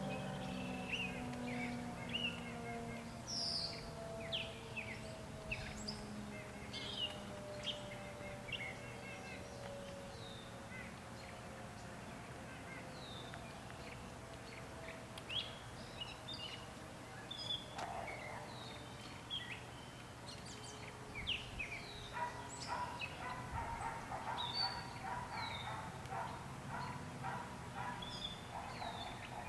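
Outdoor warning siren winding down, its tone falling slowly in pitch and fading away over the first ten seconds or so, with birds chirping throughout. Over the last several seconds there is a quick run of repeated short calls, likely a dog barking.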